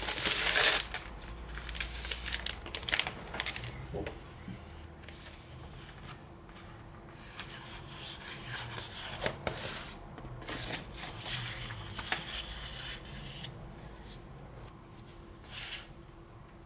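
Sheets of 12x12 scrapbook paper and their clear plastic sleeve being handled, giving papery rustles and crinkles. The rustling is loudest in the first second, then comes softer and on and off as the sheets are lifted and turned over.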